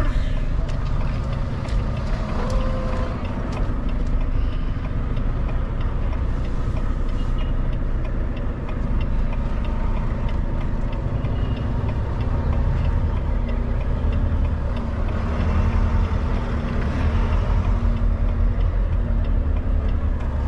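Semi-truck's diesel engine running at low speed under the cab, a steady low rumble that grows a little louder about three-quarters of the way through as the truck creeps and turns.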